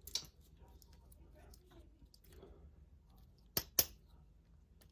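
Small clicks and taps from handling a Master Lock padlock and tools, with a click just after the start and two sharp clicks close together about three and a half seconds in.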